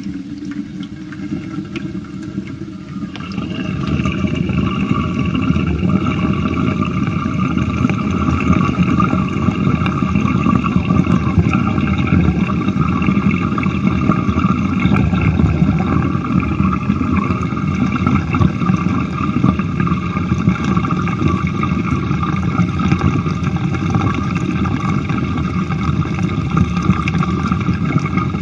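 Water draining out of a sink, a continuous gurgling rush down the drain that grows louder about three seconds in and then holds steady.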